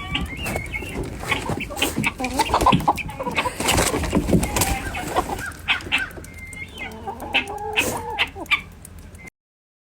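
Animal calls mixed with many short clicks and knocks; the sound cuts off suddenly near the end.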